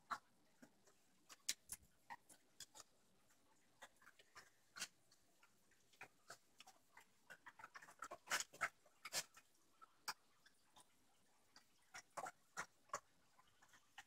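A dog eating dry kibble from a plastic slow feed bowl: irregular sharp clicks and crunches as she works the pieces out from between the bowl's raised ridges, busiest about eight to nine seconds in.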